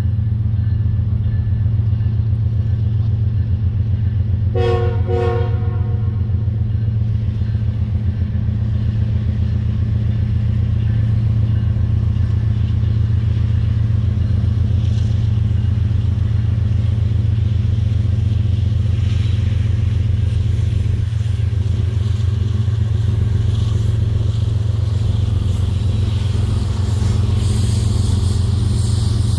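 Two diesel-electric freight locomotives running with a steady low rumble as they pull a tank train slowly in. Two short pitched tones sound about five seconds in, and wheel and rail noise builds near the end.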